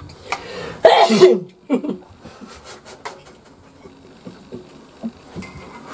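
A brief loud voice sound about a second in, followed by faint scattered clinks of a metal ladle against a wok as stew is served.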